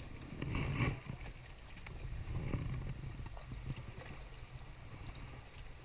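Steady low rumble with scattered light clicks and knocks of fish being handled by hand in a wooden boat's hull.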